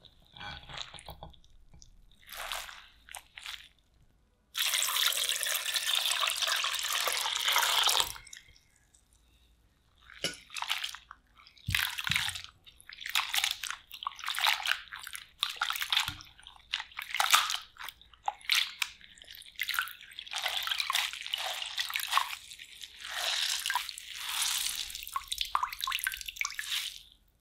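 Water poured steadily into a glass bowl of shredded raw potato for about four seconds. Then come hands swishing and squeezing the wet potato shreds, with irregular splashes and drips as they are rinsed in the frothy water.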